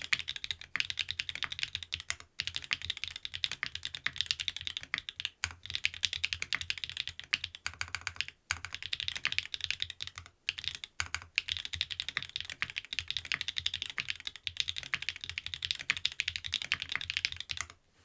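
Fast typing on a TKD Cycle 7 mechanical keyboard with stock-lubed SW x Gateron Deepping switches, an aluminium plate and PBT keycaps: a dense run of key clacks broken by a few short pauses, stopping just before the end.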